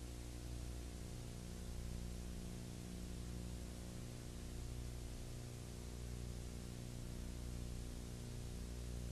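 Steady low electrical hum with a row of evenly spaced overtones, under a layer of hiss: the noise floor of a silent home-movie transfer, with no recorded sound of its own.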